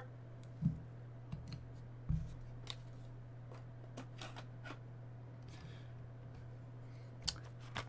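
Scattered light clicks and taps of hard plastic card holders being handled and set onto a display stand, about half a dozen over several seconds, over a steady low hum.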